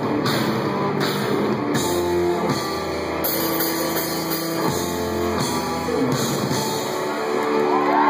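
Live rock band playing electric guitars and drum kit, recorded through a cellphone microphone.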